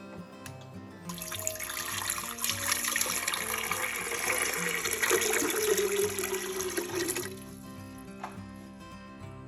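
Water running from a tap, starting about a second in and cutting off after about six seconds, over background music.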